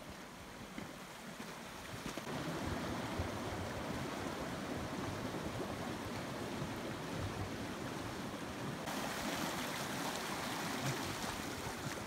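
Glacial meltwater running, a steady rushing of water that swells about two seconds in.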